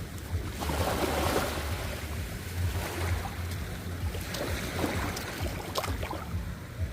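Ocean waves washing and surging, the biggest swell about a second in, over a steady low rumble, with a few short splashes near the end.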